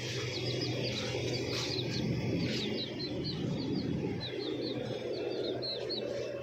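Young chicks peeping: a rapid, irregular string of short high chirps, several a second, over a steady low background rumble.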